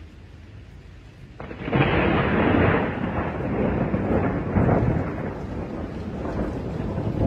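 A cat rubbing against the phone, its fur brushing over the microphone: a loud, muffled rustling noise that starts suddenly about a second and a half in and goes on unevenly.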